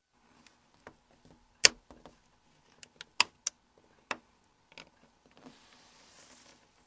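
Plastic clips on a Nokia N81 slider phone's keymat and cover snapping loose as a plastic pry tool is worked along the edge: a string of sharp clicks, the loudest about a second and a half in. A faint hiss follows near the end.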